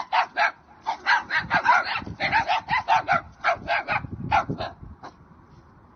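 Dogs barking in a rapid run of short, sharp barks, about four a second, stopping about five seconds in.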